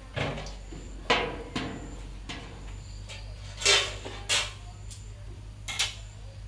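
Six irregular knocks and clatters of hard objects, spaced about half a second to a second and a half apart; the loudest falls a little past halfway.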